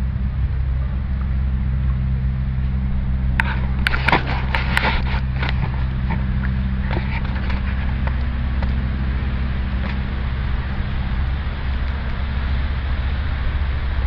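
Steady low mechanical hum from a running motor, with a short cluster of sharp clicks about four seconds in.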